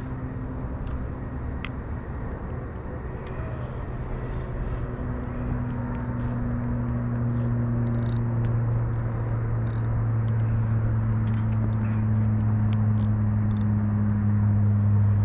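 Steady low engine hum, slowly growing louder, with faint scattered ticks above it.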